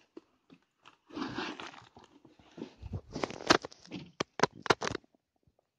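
Handling noise from a phone being gripped: fingers rubbing over the microphone in a scraping rustle about a second in, then a run of sharp knocks and clicks.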